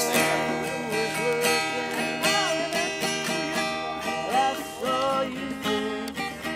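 Music: strummed acoustic guitar with a gliding melody line over it.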